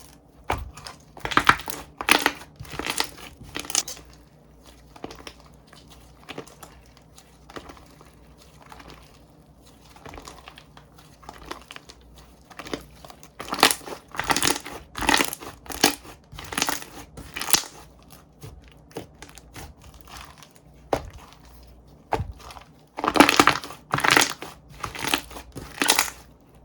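Slime being squeezed and pressed by hand, making crackling, squishy bursts about two a second. They come in three runs, with quieter handling between them.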